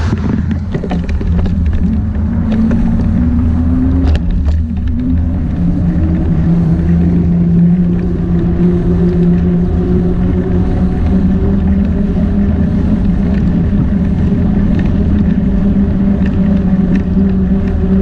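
A small motor drones steadily over a constant low rumble. Its pitch rises over the first few seconds, drops suddenly about four seconds in, then holds steady.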